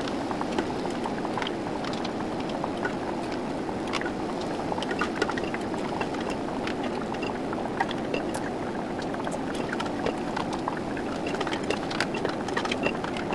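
Water-bath canner boiling steadily on the stove, with scattered light clinks and taps of a ladle and funnel against a pot and glass canning jars as hot relish is spooned in.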